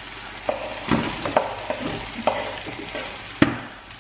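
Chopped vegetables sizzling in a hot frying pan, with a handful of sharp knocks and clatters as they are moved about and stirred.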